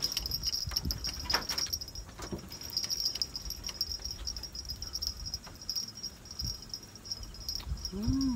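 Insects chirring in a steady, high, pulsing trill, with a few faint clicks in the first couple of seconds.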